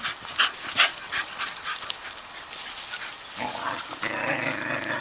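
Two dogs playing: sharp crunching steps on a forest floor of pine needles and cones in the first couple of seconds, then a rough, steady growl that starts about three and a half seconds in and runs on.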